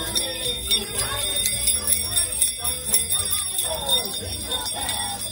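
Small jingle bells being shaken again and again, a busy jingling over children's voices.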